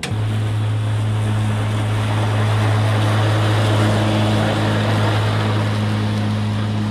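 Cub Cadet LT42e lithium-ion electric lawn tractor mowing grass: its electric motors run with a steady low hum over a broad whir from the cutting deck. The sound starts abruptly at the beginning.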